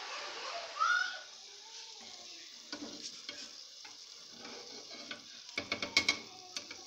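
Chebakia dough frying in hot oil in an aluminium pot, a steady sizzle, with a short rising whine about a second in. Near the end a slotted metal skimmer clinks and scrapes against the pot as the fried pieces are lifted out.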